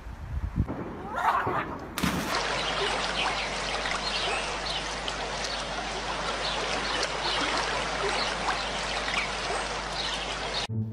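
Water trickling and splashing: a steady rushing hiss dotted with many small splashes, starting suddenly about two seconds in and cutting off just before the end.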